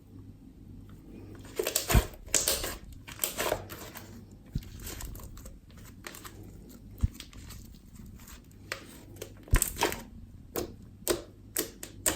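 Slime being squeezed and stretched by hand, giving irregular sticky pops and crackles in uneven clusters.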